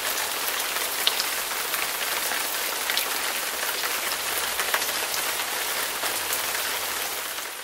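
Steady rain, a dense hiss with scattered small drop ticks, fading out near the end.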